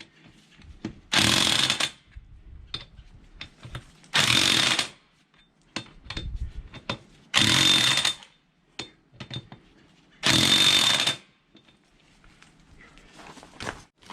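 Electric impact wrench hammering in four short bursts a few seconds apart, each under a second: the tractor's lug bolts being run down onto the wheel.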